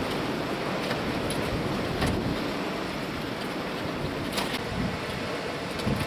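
Strong storm wind in a blizzard: a steady rushing noise with a gusty low rumble from the wind buffeting the microphone, and a few faint ticks.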